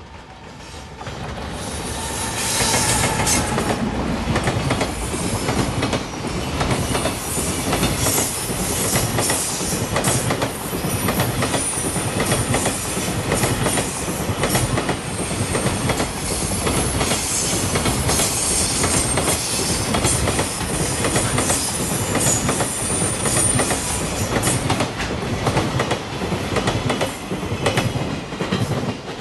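Freight train hauled by a JR Freight EF210 'Momotaro' electric locomotive passing close by, its wagon wheels clattering over the rail joints in a rapid, steady clickety-clack. The sound builds over the first few seconds and falls away at the very end as the last wagons pass.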